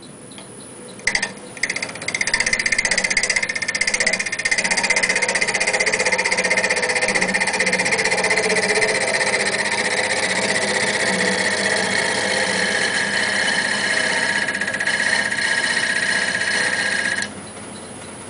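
A parting tool cutting into an off-center-mounted wooden goblet stem spinning on a wood lathe: a loud, steady, high-pitched scraping that starts about two seconds in, after a couple of clicks, and stops sharply near the end, leaving the lathe running more quietly.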